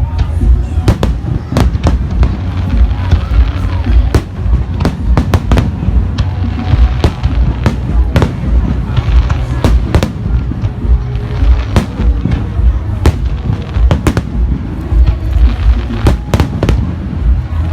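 Aerial fireworks bursting: many sharp bangs and cracks in quick, irregular succession over a constant deep rumble.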